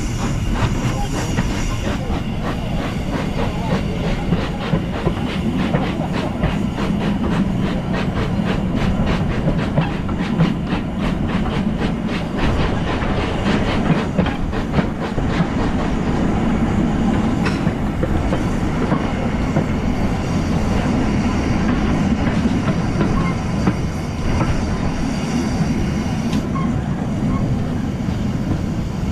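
Replica of Stephenson's Rocket steam locomotive running along the track, heard from its tender: a steady train noise with a quick, even clatter of wheels over the rails.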